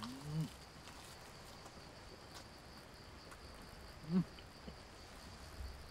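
A steady, high insect chirr, with two short hummed vocal sounds from a man eating, one right at the start and a louder one about four seconds in.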